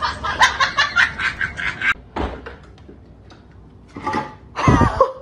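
A person laughing in quick, rhythmic bursts for about two seconds, then a quieter stretch, then more voice sounds near the end.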